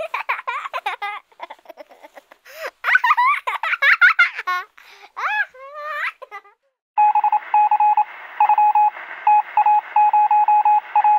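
High voices babbling and giggling, then a pause. From about seven seconds in, a single beeping tone switches on and off in irregular short and long pulses over a steady radio-like hiss, with a thin telephone-like sound.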